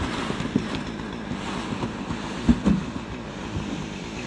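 Steady rushing noise of wind buffeting the microphone, with a couple of brief low thumps.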